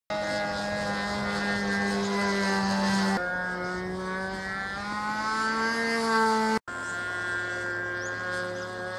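Model biplane's Super Tigre .46 two-stroke glow engine running in flight, a steady pitched engine note that slides up and down as the plane manoeuvres. The note changes abruptly about three seconds in and drops out briefly about six and a half seconds in.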